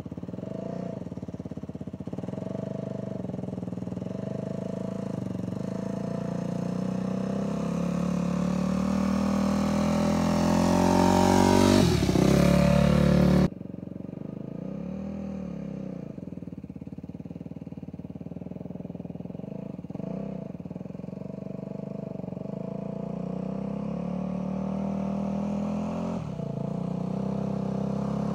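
Yamaha YZ250F dirt bike's single-cylinder four-stroke engine running as the bike approaches, growing louder and passing by about twelve seconds in with a falling pitch. The sound cuts off suddenly a moment later; the engine is then heard again farther off, drawing closer and louder near the end.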